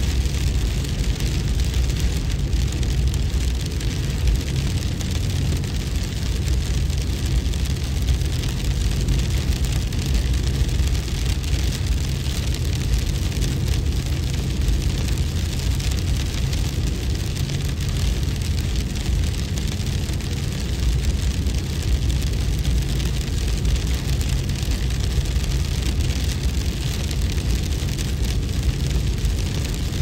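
Steady, unchanging noise, strongest in the deep bass with a fainter hiss above it: a brown/white-noise style relaxation track standing in for wind and hail.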